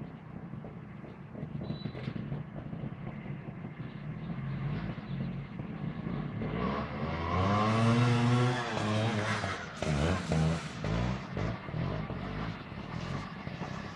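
Off-road motorcycle engines revving. The pitch climbs to a loud peak a little past halfway, falls away, then breaks into a string of short throttle blips.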